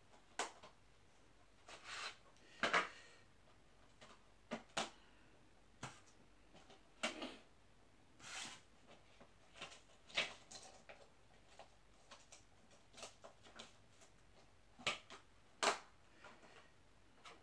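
Irregular clicks, taps and short rustles of small items and plastic packaging being handled on a tabletop, a dozen or so spread through, the loudest about three seconds in and near the end.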